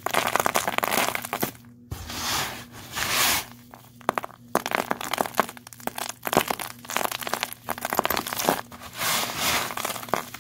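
Dry vacuum debris, clumps of dust and lint mixed with confetti, small plastic gems and dirt, being squeezed and crunched by hand and let fall back onto the pile. It comes as repeated bursts of crunching and crinkling, with sharp little clicks of hard bits landing.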